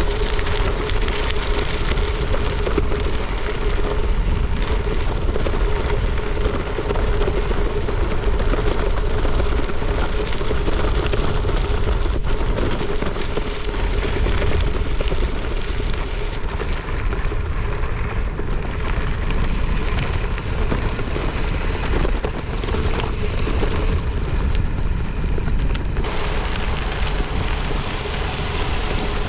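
Wind rushing over the microphone while riding, a steady roar heaviest in the low rumble, with a faint constant hum running through it.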